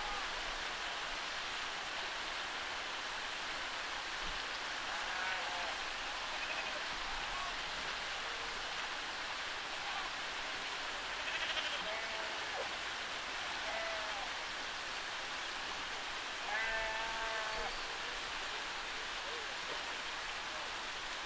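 Flock of sheep bleating now and then, several short bleats and one longer, louder bleat near the end, over a steady hiss.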